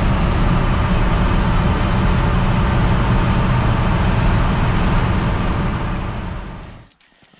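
1959 GMC pickup truck cruising at highway speed, heard from inside the cab: a steady, loud mix of engine, road and wind noise. It fades out near the end.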